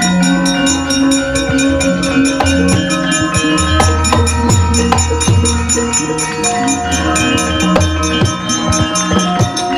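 Javanese gamelan playing: ringing bronze metallophone tones over deep drum and gong strokes about once a second, with sharp knocks throughout.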